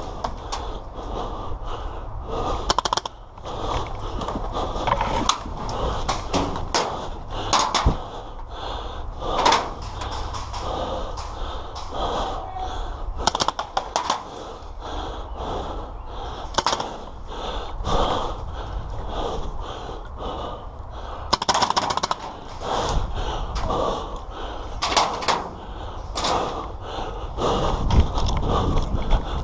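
Heavy breathing close to the microphone, swelling and fading, with scattered sharp clicks and knocks throughout.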